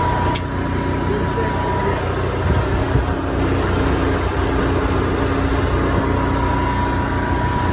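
RV generator running steadily, just started off jumper cables from a truck, with the truck's engine idling alongside. A sharp click about half a second in and a knock around three seconds in as the jumper cable clamps are taken off.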